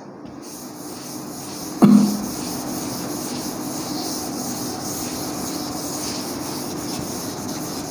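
Chalkboard duster rubbing across a chalkboard, wiping off chalk writing: a steady scrubbing noise, with one brief knock about two seconds in.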